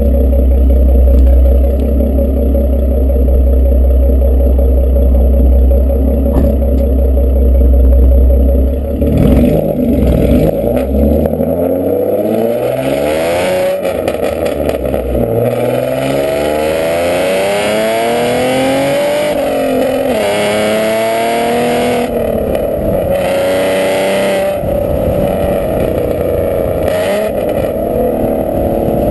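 Exhaust of a 2012 Ford Mustang's 3.7-litre V6 fitted with a Lethal Performance off-road X-pipe and Roush axle-back mufflers. It holds a steady deep rumble for about nine seconds, then the car pulls away. The pitch climbs and drops several times as it accelerates through the gears, and it settles into a steadier cruise near the end.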